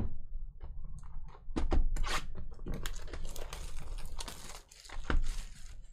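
Shrink wrap tearing and crinkling as a cardboard trading-card hobby box is unwrapped and opened, with scattered clicks and two sharp thumps of the box, the loudest at about two seconds and five seconds in.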